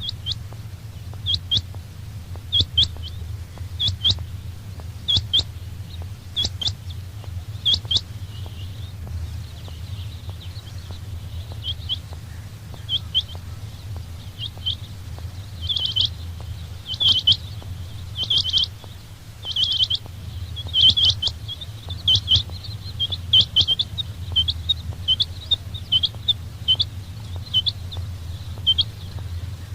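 Quail ('chinga batair') calling: short, sharp high notes repeated about once a second, growing faster and more crowded about halfway through. A steady low hum runs underneath.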